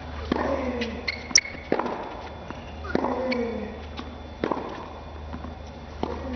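Tennis rally on a hard court: racket strikes on the ball come about every second and a half, each followed by a player's short grunt falling in pitch. A shoe squeaks on the court surface about a second in.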